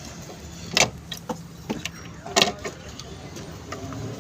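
Hand tools and metal parts clicking and knocking during work in a car's engine bay while an ignition coil is fitted. Two louder knocks about a second and a half apart, a few lighter clicks between, over a steady low hum.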